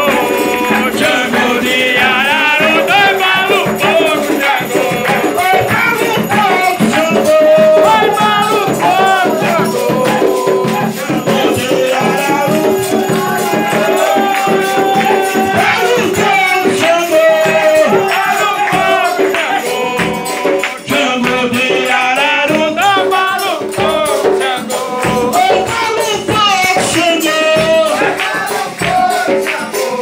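Umbanda ritual song for the orixá Xangô, sung by a group of voices over hand-clapping and rhythmic percussion.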